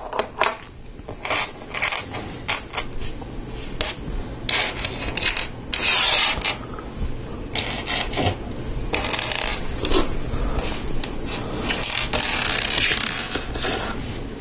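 Plastic Lego Technic parts being handled and fitted together: scattered small clicks and rattles, with a few longer stretches of plastic rubbing and scraping.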